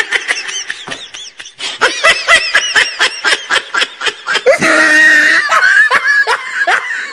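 High-pitched laughter in quick, repeated bursts, about four or five a second, with a longer drawn-out squeal of laughter about five seconds in.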